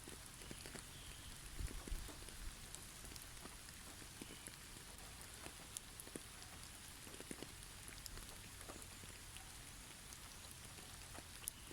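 Faint ambience of snow falling in a forest: a steady soft hiss with many scattered light ticks and patters, and a soft low thump about two seconds in.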